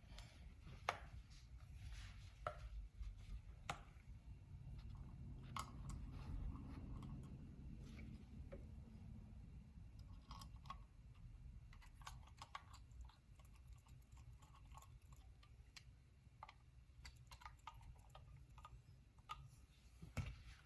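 Faint, scattered clicks and light taps of small clipper parts and tools being handled during reassembly, over a low steady hum of room noise.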